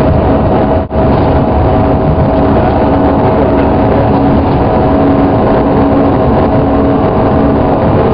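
Airliner engines running loudly and steadily, heard from inside the passenger cabin, with two steady hums in the drone. The sound drops out for an instant about a second in.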